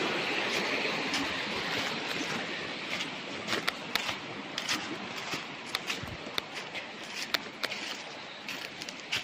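Steady rush of flowing river water that slowly fades, with irregular sharp clicks and crunches starting about three seconds in.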